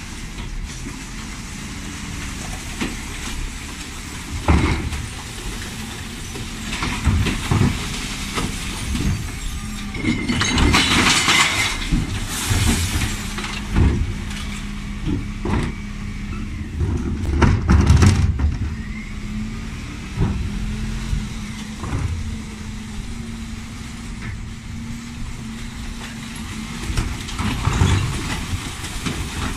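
Dennis Elite 6 bin lorry running while its Terberg OmniDEKA lift handles wheelie bins, with repeated knocks and clunks of bins against the lifter. About ten seconds in comes a rattling crash of emptied recycling (tins, bottles and jars) into the hopper, followed by a steady hum.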